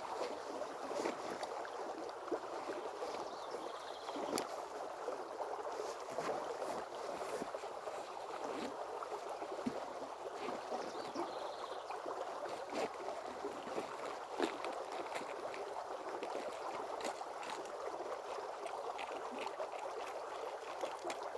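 River water running steadily, with occasional faint clicks.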